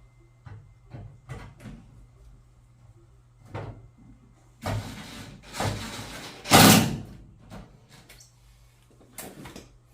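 Handling noise: a few scattered knocks and clicks, then a loud sliding scrape about five to seven seconds in, and a couple more knocks near the end.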